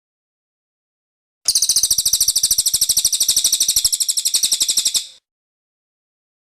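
Cililin bird song: one fast, even trill of high, rapidly repeated notes, starting about a second and a half in and lasting about three and a half seconds.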